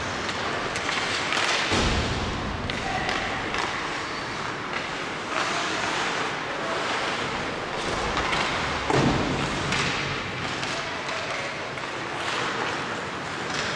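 Ice hockey play in a rink: skates scraping on the ice with stick and puck clacks, and a louder thud about nine seconds in.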